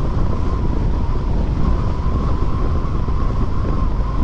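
Wind rushing over the microphone of a moving Honda Click 125 scooter, with a faint steady whine under it.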